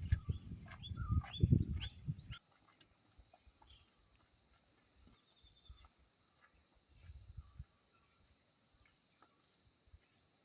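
A steady, high-pitched insect chorus, crickets or cicadas, with a few faint bird chirps over it. For the first two seconds or so it is covered by loud low rumbling with knocks and repeated short chirping calls, which cut off abruptly.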